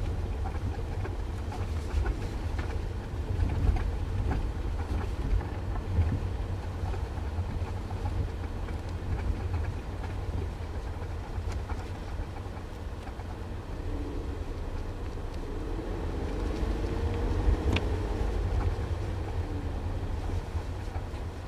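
Volkswagen Tiguan driving over a rough road: a steady low road rumble with scattered sharp knocks and clanks from the car. These knocks and clanks are the fault its owner is trying to track down.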